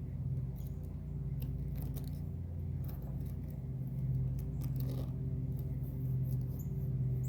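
Scattered crackles and clicks of roofing sealant tape being handled and pressed around a chimney boot, over a steady low hum.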